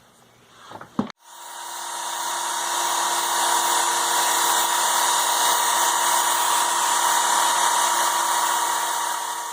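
Electric power sanding tool switched on with a sharp click about a second in; its motor speeds up over the next second, then runs steadily at one pitch.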